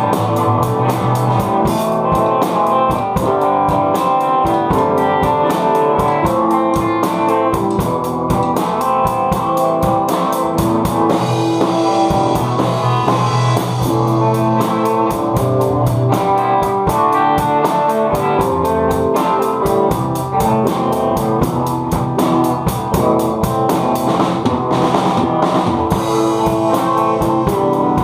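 Rock music on guitar with a drum kit, played continuously at a steady loud level with poor sound quality.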